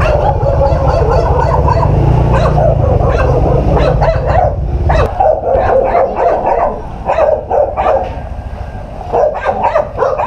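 A dog barking again and again, with a lull in the middle and a fresh run of barks near the end. Under it, the Suzuki Raider 150 motorcycle's engine idles with a low rumble and is switched off about five seconds in.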